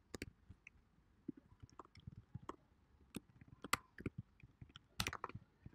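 Faint, irregular keystrokes on a computer keyboard as code is typed, a scattered run of separate taps with short gaps between them.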